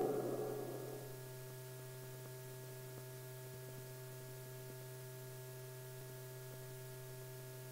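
Faint steady electrical hum with a few thin higher tones, the background hum of an old film soundtrack. A rushing hiss fades out during the first second.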